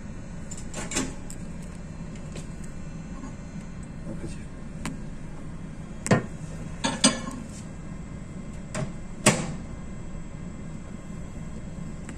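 Steady low hum of a ship's onboard machinery, broken by a few sharp knocks, the loudest about six, seven and nine seconds in.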